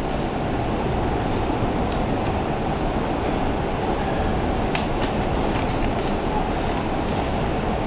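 Steady, even background noise, a low rush without words, with a few faint clicks about halfway through.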